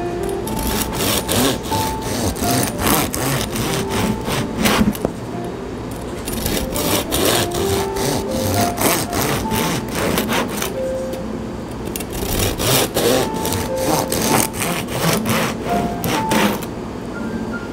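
Serrated bread knife sawing through a dark rye loaf, with repeated back-and-forth rasping strokes as the blade cuts crust and crumb, slice after slice.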